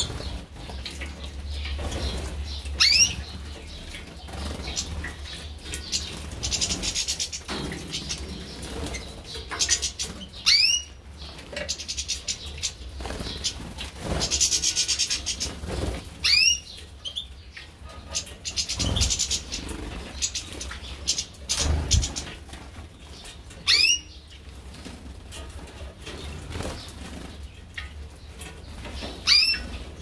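Small finches bathing in a shallow water tray: bouts of splashing and wing-flapping, with a short upward-sweeping whistled call repeated about every six seconds.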